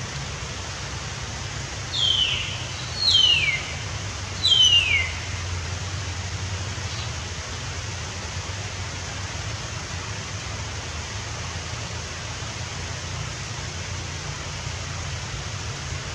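A bird gives three downward-sliding whistled calls about a second apart, each roughly half a second long, over a steady hiss of background noise.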